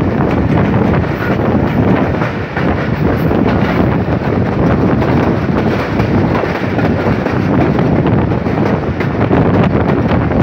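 Wind buffeting a microphone held outside a moving passenger train, over the steady running noise of the coach on the rails.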